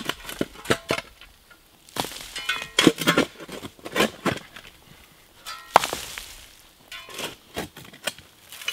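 Hand-digging a trench in stony, root-filled soil: a steel digging tool strikes the ground at irregular intervals, dull chops mixed with sharp clinks where the blade hits stones.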